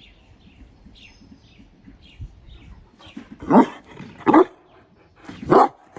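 A large dog barking three times in the second half, the barks roughly a second apart.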